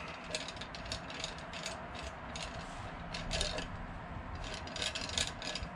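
Light metallic clicking and rattling from a slide-hammer bearing puller as its T-handle and threaded shaft are turned and worked to set the puller in a motorcycle front wheel bearing. The short clicks come irregularly, with no heavy hammer blow.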